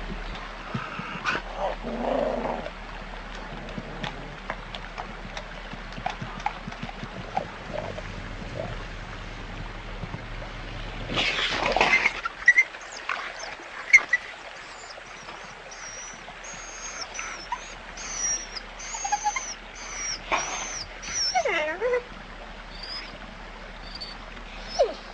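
Wolves at a carcass: chewing and crunching at first, a brief loud scuffle about eleven seconds in, then a run of short high whimpers and yips with a couple of whines sliding down and up in pitch near the end.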